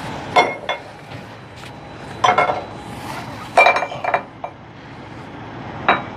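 Metal hooks clinking and rattling against metal in several short clusters, each strike ringing briefly, as they are pulled over the top of a tarped steel coil.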